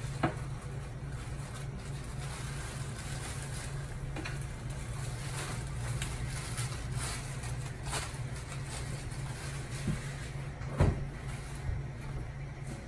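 Kitchen handling sounds at the stove: light clicks and knocks of a pan and utensils over a steady low hum, with one louder knock near the end.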